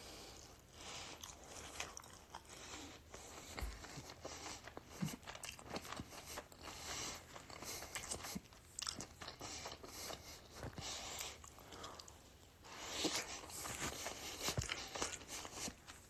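A person biting into and chewing Popeyes honey barbecue chicken wings, with irregular crunches throughout.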